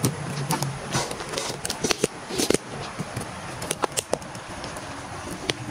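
Irregular light knocks and clatters of particleboard flat-pack panels and small parts being picked up and handled, a few sharp taps among softer rustling.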